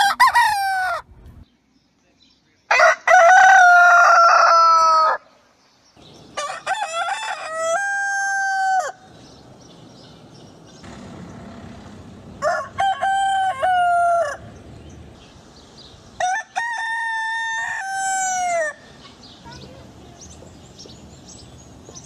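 Rooster crowing cock-a-doodle-doo again and again: the end of one crow right at the start, then about four full crows of two to three seconds each, a few seconds apart, each dropping in pitch at its end.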